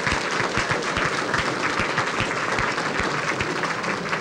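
Audience applauding: many hands clapping in a dense, steady stream at the close of a speech.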